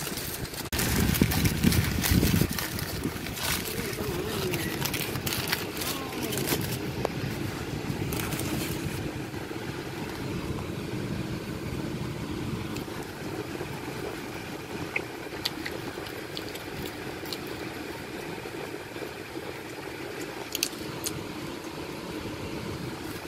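Rustling and knocking from the phone being handled for the first several seconds, then a steady car-cabin hum with a few light clicks.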